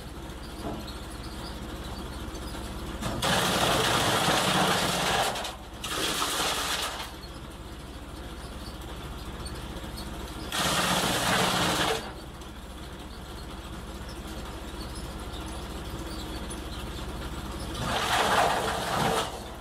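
Eberl SH 20 stationary forage chopper running steadily with a low hum, and four loud, noisy bursts of crunching as dry branches are fed in and chopped, each lasting one to two and a half seconds.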